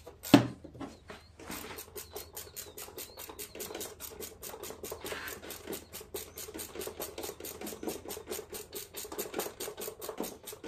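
Socket ratchet clicking at an even pace, about five clicks a second, as a bolt on a mower's engine shroud is run in. A single loud knock comes about half a second in.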